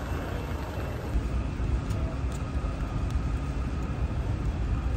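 Steady low rumble of a large store's background noise, with a few faint clicks.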